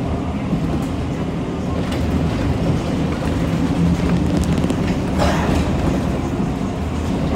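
City bus engine and road noise heard from inside the cabin as the bus drives along, a steady low rumble. A short hiss comes about five seconds in.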